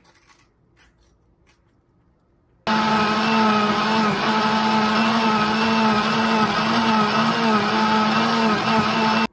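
Countertop blender starts abruptly about two and a half seconds in and runs steadily with a motor hum, blending blueberries and banana into juice. A few faint clicks come before it starts.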